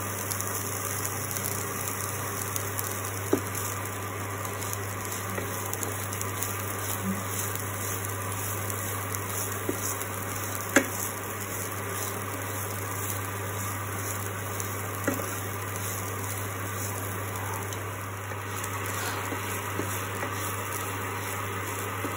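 Raw rice and coconut paste sizzling in a frying pan as they are stirred with a wooden spatula, with a few sharp knocks of the spatula against the pan over a steady low hum.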